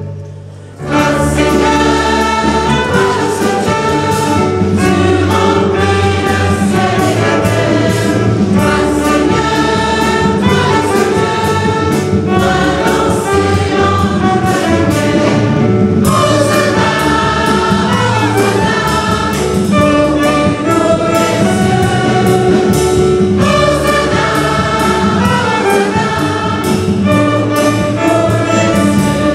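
A choir singing together in full voice. The singing drops away at the very start and comes back in about a second in, then carries on without a break.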